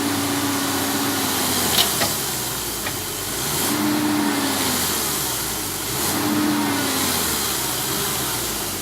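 Heavy diesel machinery engine working hard under load with a steady hissing roar, swelling in level twice: heavy equipment straining to pull a stuck vehicle free on soft ground.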